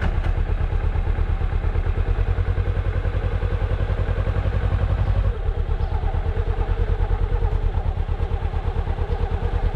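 Motorcycle engine running as the bike is ridden, with an even, rapid pulsing beat. About halfway through, its level drops slightly and its note changes.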